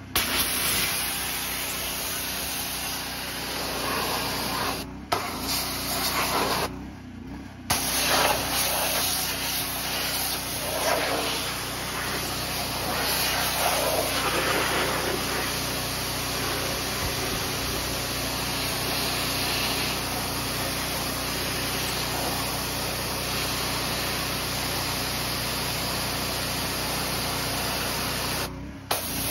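A pressure-washer jet sprays water onto a car's bare metal floor pan, rinsing off foamy cleaner with a steady hiss and a faint steady low hum underneath. The sound breaks off briefly a few times, around 5 and 7 seconds in and again near the end.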